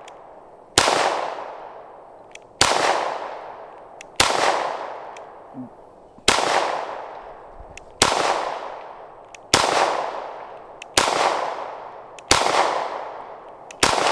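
Smith & Wesson SD9 2.0 9mm pistol fired nine times in slow, deliberate single shots, about one every one and a half seconds. Each sharp report is followed by a ringing echo that dies away over about a second.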